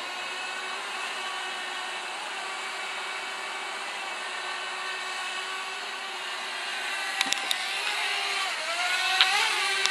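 Camera drone's propellers and motors hovering with a steady whine; near the end the pitch wavers up and down as the drone manoeuvres. A few sharp taps come about seven seconds in and again about nine seconds in.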